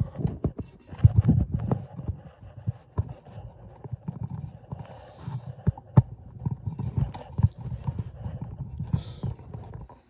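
Irregular knocks, clicks and rubbing as hands handle a ceiling fan's housing and wiring right up against the microphone.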